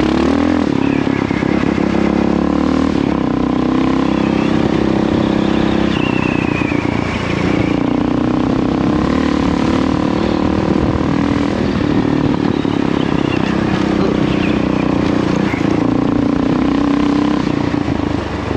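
2006 Kawasaki KLR650's single-cylinder four-stroke engine running under way, its pitch rising and falling again and again as the throttle is opened and rolled off.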